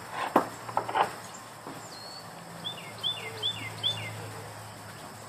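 A couple of sharp knocks in the first second, likely from working the gate's hinge nut, then a bird calling four short notes in quick succession, each dropping in pitch.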